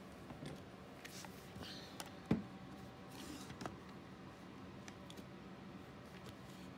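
Handling noises as a one-handed bar clamp is set and squeezed onto an aluminium pocket hole jig and board: scattered light clicks and knocks, with one sharper knock about two seconds in.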